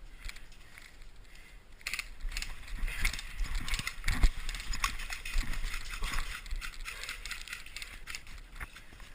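Rustling with many scattered clicks and knocks, growing louder about two seconds in, and one sharp knock a little after four seconds.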